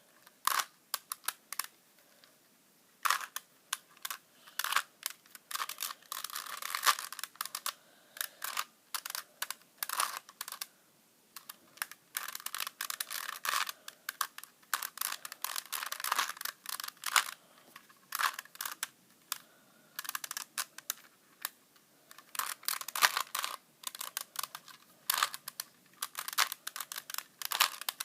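Plastic Rubik's Cube being turned by hand: rapid, irregular clicking of its layers rotating, in bursts of quick turns with short pauses between.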